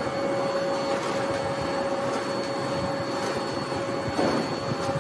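Backpack vacuum cleaner running steadily with a constant whine as its floor tool is pushed over carpet; a brief thud about four seconds in.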